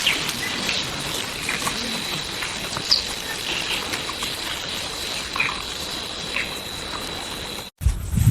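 Steady hiss of outdoor ambience, like running water, with a few short chirps. Near the end it drops out for an instant and gives way to a low rumble.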